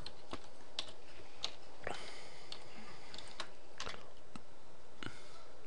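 Computer keyboard being typed on: about ten separate keystrokes at an uneven pace, entering a short command.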